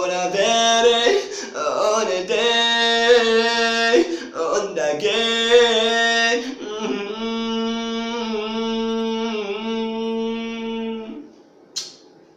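A man singing unaccompanied in a small tiled room, holding long wordless notes, the singing stopping about eleven seconds in. A single short click follows near the end.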